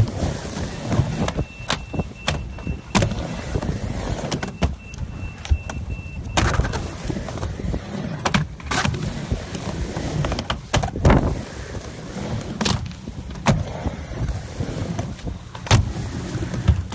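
Skateboard wheels rolling on hard ground, with many sharp clacks and slaps of the board popping, hitting and landing at uneven intervals.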